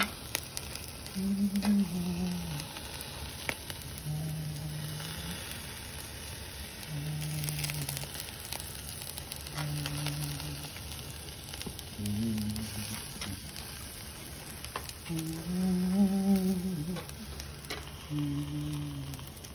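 Steak and vegetable kebabs sizzling over hot charcoal on a tabletop grill, a steady hiss with scattered small pops and crackles. Short, low hummed notes from a person come every couple of seconds over the sizzle.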